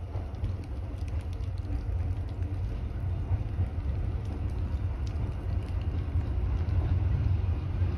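Low rumble of wind buffeting the microphone, with light rain pattering, slowly growing louder.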